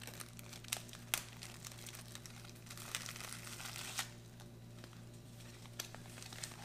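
A clear plastic bag and the paper pouch of a flameless ration heater crinkling and rustling as they are handled and unwrapped, with several sharp crackles, the loudest about a second in and at four seconds.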